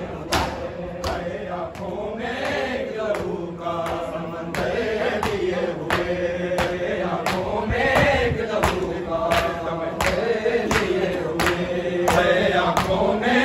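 A group of men chant a noha (mourning lament) in unison, with the steady beat of open hands slapping bare chests in matam, about three slaps every two seconds.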